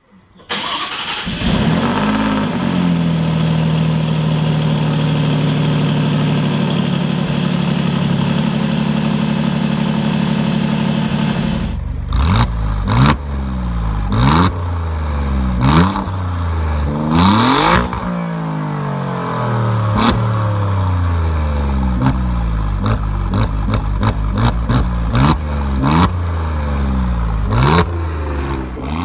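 Alfa Romeo Giulia Quadrifoglio's 2.9-litre twin-turbo V6 (F154) exhaust. It starts up about half a second in and settles into a steady idle. From about twelve seconds in it is revved while standing still, in about ten sharp blips that rise and fall in pitch.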